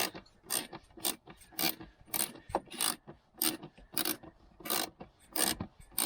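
Ratchet wrench worked back and forth on a seat-belt anchor bolt, a short burst of pawl clicking with each stroke, evenly paced at a little under two strokes a second.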